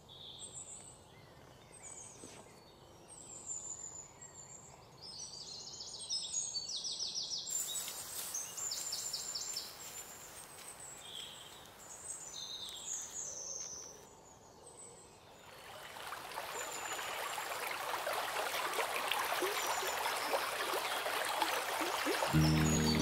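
Woodland birds singing, with short chirps and fast trills. Past the middle, the steady splash of water pouring from a hollowed-log trough swells up and takes over.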